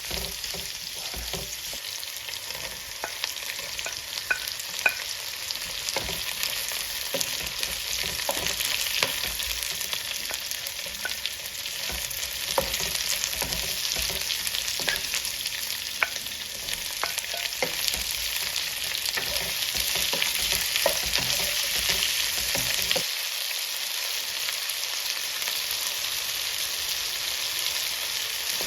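Food frying in hot oil in a pan: a steady sizzle with scattered small crackles and the clicks and scrapes of stirring.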